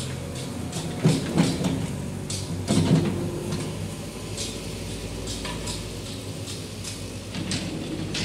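JCB backhoe loader's diesel engine running steadily, with the backhoe bucket clanking and scraping through wet mud, loudest about one second and three seconds in.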